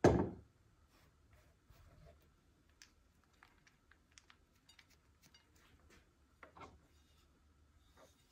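A sudden loud knock right at the start that dies away within half a second, then faint scattered ticks and light taps of kitchen handling, with a softer knock about six and a half seconds in.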